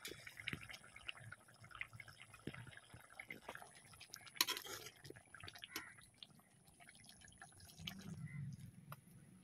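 Thick prawn masala curry boiling in a large aluminium kadai over a wood fire, with faint, scattered soft pops and plops from bursting bubbles. About four and a half seconds in comes one brief, louder burst of noise.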